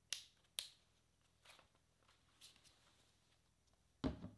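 Canon EOS R6 mirrorless camera being handled: two sharp clicks in the first second and a couple of fainter clicks, then a thud about four seconds in as the camera is set down on the tabletop.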